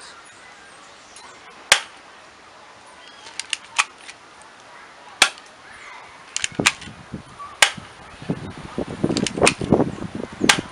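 Airsoft gun firing: four sharp shots, two to three seconds apart, with fainter clicks between them and some handling rustle in the second half.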